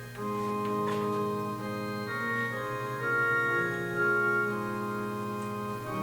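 Organ playing slow sustained chords over a held bass note, the chords shifting every second or so: offertory music.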